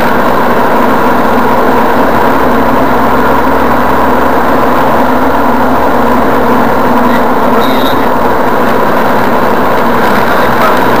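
Car engine and road noise heard inside the cabin, running steadily while cruising on a highway.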